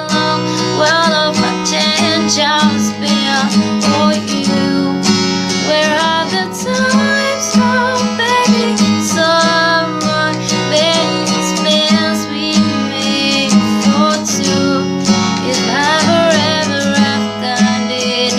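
Music: a strummed acoustic guitar with a gliding melody line over it.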